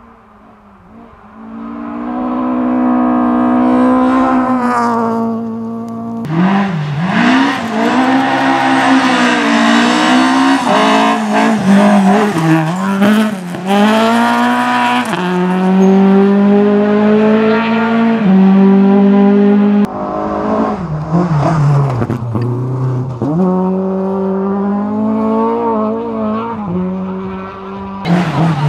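Rally cars at full throttle on a gravel stage, several passes one after another. The engines rev high, drop briefly at gear changes and lifts, and climb again. The first car approaches from faint to loud over the opening few seconds.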